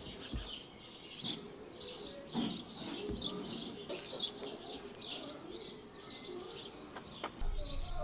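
Birds chirping: many short, high calls in quick succession. A low hum comes in near the end.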